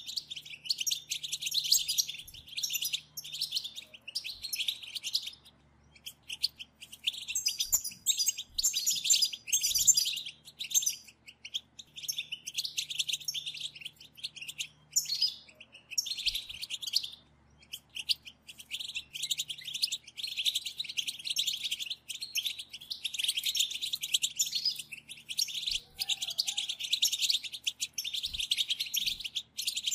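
A group of European goldfinches twittering and chattering together in fast, high-pitched runs, with a few short breaks: the 'batbata' chatter used to excite a goldfinch into song.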